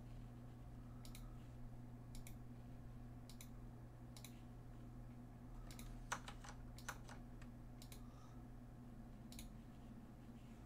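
Faint, scattered clicks of computer keys, a few at a time with a short flurry about six seconds in, over a low steady hum.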